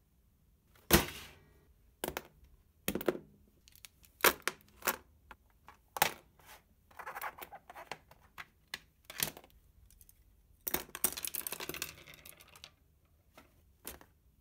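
Art supplies handled on a wooden desk: a series of sharp knocks and clacks as items are put down, the loudest about a second in. Two stretches of rustling and scraping come about seven seconds in and again around eleven seconds, while a small plastic case is fought open and things are moved about.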